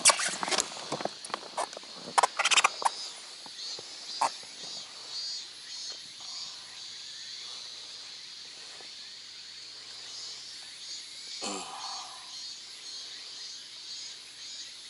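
Small clicks and knocks from a baitcasting reel and rod being handled in an inflatable boat, bunched in the first few seconds, then a steady high hiss.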